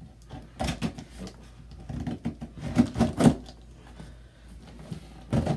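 Scissors cutting packing tape on a cardboard box, heard as a few short scraping, rustling bursts of blade, tape and cardboard, with a busier stretch in the middle.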